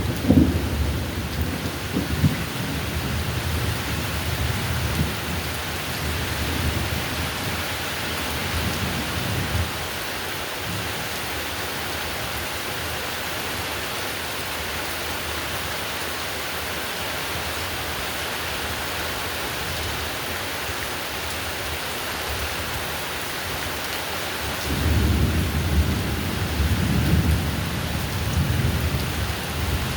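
Heavy rain falling steadily, with rolls of thunder: one rumbling away over the first several seconds and another starting near the end.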